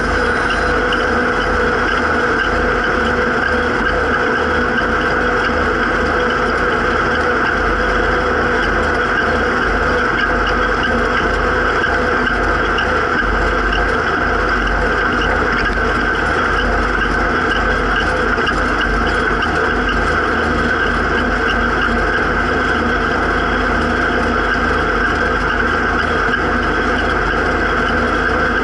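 Zetor 7340 tractor's four-cylinder diesel engine running steadily while driving along the road, heard from inside the cab, with a steady high whine alongside.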